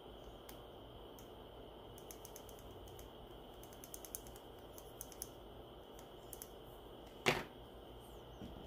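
Small light clicks of metal tweezers tapping against a plastic model kit part while pressing glow tape into place, then one much louder single knock about seven seconds in.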